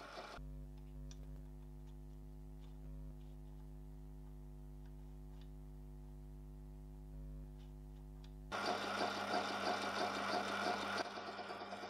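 Mini metal lathe's motor humming steadily, then about eight seconds in a louder, rough cutting noise as a centre drill bites into the end of a spinning brass rod, changing character a few seconds later.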